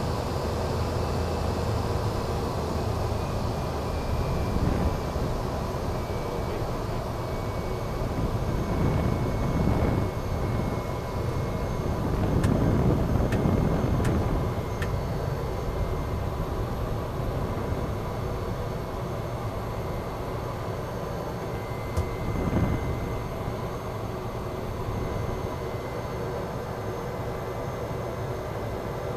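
Cessna Caravan amphibian's Pratt & Whitney PT6A turboprop engine and propeller running at low power as the floatplane taxis on the water, heard from inside the cockpit. A steady drone with a faint whine, swelling louder for a couple of seconds about halfway through, with one short click later on.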